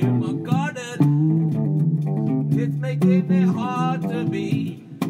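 A funk band playing: bass guitar holding low notes under a guitar part, with a wavering high melody line coming in twice.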